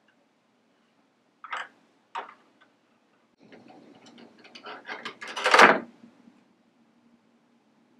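Hard plastic Playmobil toy parts being handled: two light clicks, then a longer run of clicking and clatter that peaks in one louder knock, as the food truck's rear door is swung open and the grill piece inside is lifted out.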